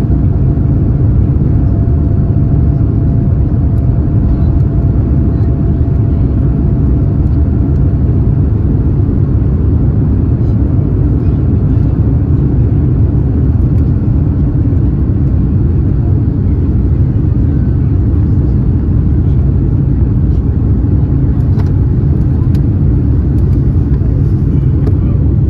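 Boeing 787 cabin noise during the takeoff roll and lift-off: a loud, steady, deep rumble from the engines at takeoff power and the runway. A faint, thin, steady whine sits above it and fades out about eight seconds in.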